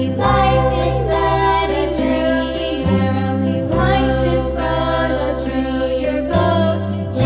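Background music with singing over a steady bass line.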